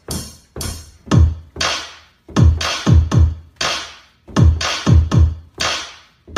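Electronic music track: a drum-machine beat of separate hits in a stop-start pattern, each a deep kick that drops in pitch under a hissy top.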